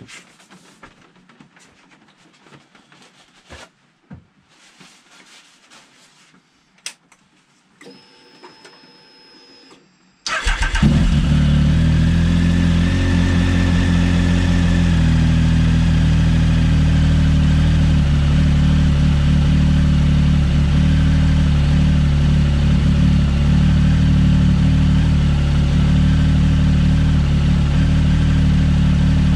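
A few faint clicks, then about ten seconds in a 2016 Triumph Speed Triple 1050's inline three-cylinder engine starts and idles steadily, its pitch settling a few seconds after it catches. It is the first start after an oil and filter change, run to circulate the fresh oil.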